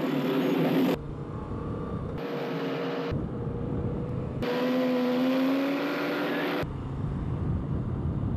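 Motorcycle engines in traffic, the sound cutting abruptly back and forth several times between a steady pitched drone of several motorcycles and the deeper low rumble of a ride on a Moto Guzzi V7 II.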